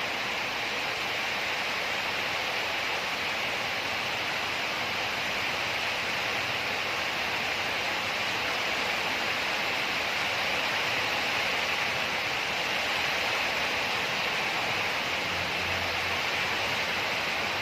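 Steady, even hiss with no separate knocks or clicks.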